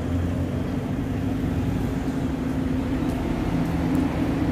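Steady low motor hum with an even, unbroken drone.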